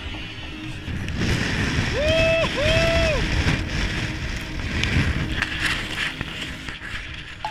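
Strong wind buffeting and rushing over the camera microphone, with a deep rumble. About two seconds in, two short held hoots rise and fall back to back.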